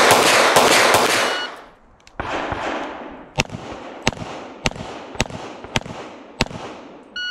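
Pistol gunfire in a practical shooting match. First a fast string of loud shots with heavy reverberation that stops about a second and a half in, then, after a short lull, six evenly spaced shots at about two a second. A shot timer's electronic beep starts right at the end.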